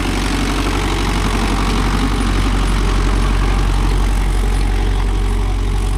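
Mahindra Yuvo Tech+ 585 4WD tractor's diesel engine running steadily while it pulls a cultivator.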